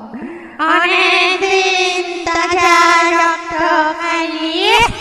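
Eerie horror sound effect: a high wailing voice-like tone with a wavering vibrato, held for about four seconds, with a couple of faint clicks. Near the end it slides sharply upward.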